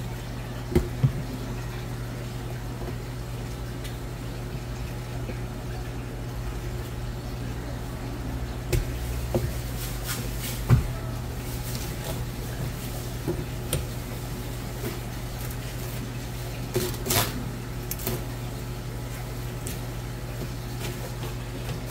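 A long knife and gloved hands working a flatfish fillet on a cutting board. Scattered sharp taps and knocks, twice near the start, a few in the middle and a cluster near the end, sit over a steady low machine hum.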